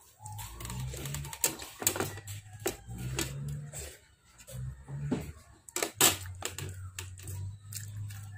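Spoon tapping and scraping against a plastic plate in a run of irregular sharp clicks, over a low steady hum.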